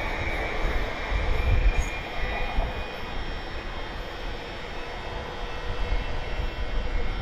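Greater Anglia Class 755 bi-mode multiple unit pulling away on the track, a steady running rumble with a faint whine, getting quieter as it draws away.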